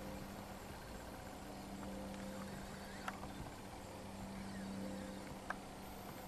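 A quiet, low, steady hum, with two faint clicks about three and five and a half seconds in.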